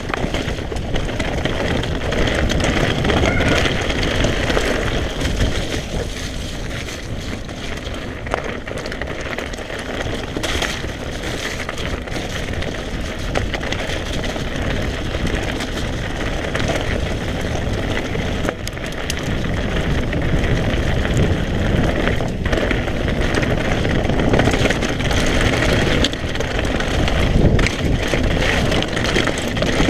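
Mountain bike being ridden on a trail: steady rumble and rustle with wind on the microphone and many small clicks and knocks of tyres and frame over rough ground.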